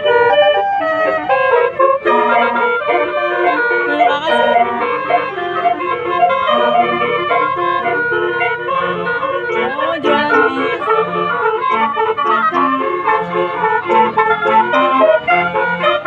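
Indonesian bus 'telolet' horn: a bank of air horns playing a fast melody of overlapping notes that sounds organ-like, with a short rising glide about ten seconds in.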